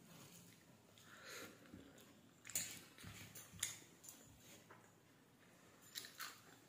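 Faint sounds of eating rice and fish by hand from a steel plate: a few short clicks and wet smacks, spaced a second or more apart.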